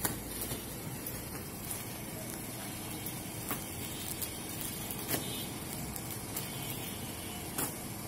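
Clear plastic garment bags crinkling as folded T-shirts are handled and packed: a few sharp crackles over a steady background hiss.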